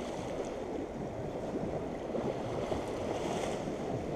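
Waves lapping and splashing against a concrete seawall, a steady wash of water, with wind noise on the microphone.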